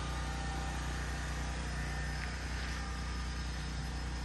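Diesel engine of heavy earthmoving machinery, an excavator and wheel loader, running with a steady low drone.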